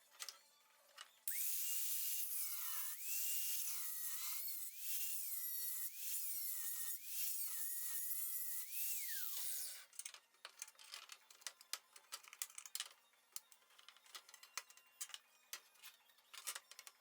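Small high-speed rotary tool grinding a plastic dashboard part for about eight seconds, starting about a second in; its whine dips and recovers in pitch as the bit bites into the plastic. After it stops, faint scraping and clicking of hand work on the part.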